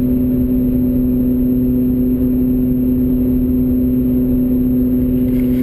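Failing front left wheel bearing of a 2002 BMW E46 M3 droning steadily at 75 mph, heard in the cabin as a constant hum with a strong low tone over road noise. The bearing is worn out at about 95,000 miles.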